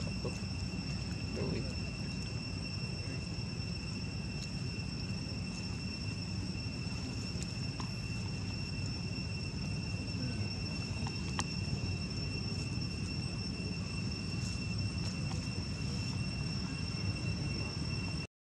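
Insects droning: one steady, unbroken high-pitched tone with a fainter higher one above it, over a constant low rumble. The sound cuts out for a moment at the very end.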